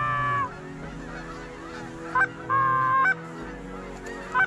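Canada goose honks: a long, level honk at the start and another about the middle, each led by a short clipped note, with quieter gaps between.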